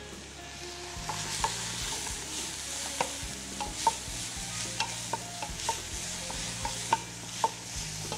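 Food sizzling in a stainless steel pot while it is stirred with a spoon, the spoon clinking irregularly against the pot, about two times a second.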